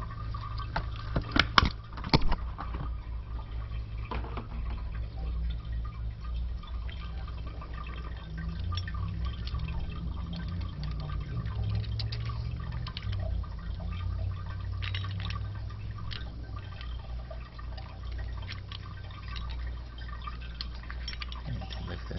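Water dripping and trickling in an open toilet tank, with sharp clicks and knocks of the tank lever parts being handled, loudest about one and a half to two seconds in, and fainter ticks after that.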